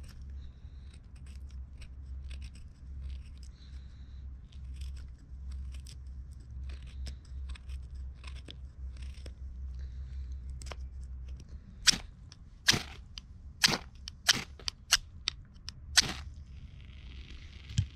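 Knife shaving thin curls off a stick of dry wood, a run of light, irregular scraping cuts. About twelve seconds in, a ferro rod is struck hard about seven times, throwing sparks into the tinder, which then catches with a soft hiss near the end.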